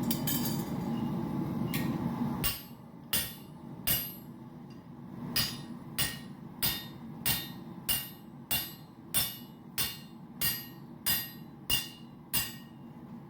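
Hand hammer striking hot titanium on an anvil, drawing the billet out into a bar: about fifteen ringing metallic blows, roughly one every half second or so, with a short pause after the first three. A steady rushing noise before the hammering stops about two seconds in.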